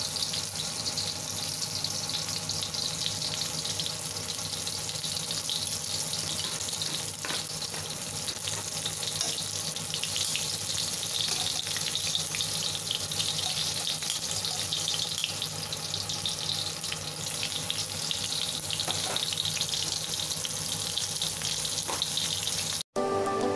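Spring rolls shallow-frying in hot oil in a wok: a steady sizzle with scattered small pops, cutting off suddenly near the end.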